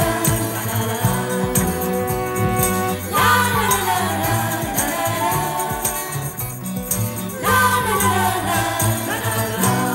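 Instrumental outro of a 1970s children's TV song, a band playing over a steady bass line, with a sliding downward phrase twice, about three and seven seconds in.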